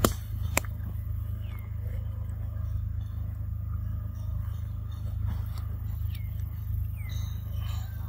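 Outdoor background: a steady low rumble with two sharp clicks about half a second apart at the start, and faint short falling chirps every second or two.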